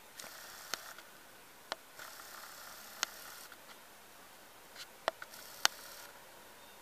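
Camera handling noise: about seven sharp clicks and small knocks, irregularly spaced, over faint room tone, as the camera is held and zoomed out.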